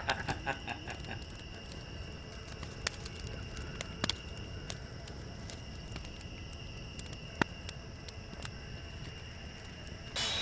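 Wood campfire crackling, with scattered sharp pops and snaps over a quiet steady background and a faint steady high tone. A short hiss-like burst comes near the end.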